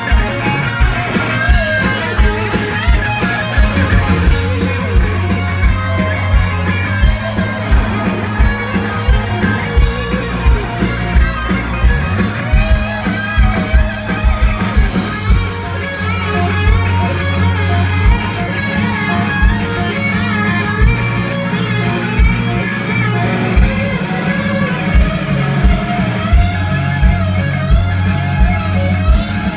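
Live rock band at full volume: two electric guitars trade a solo over a steady drum beat and bass.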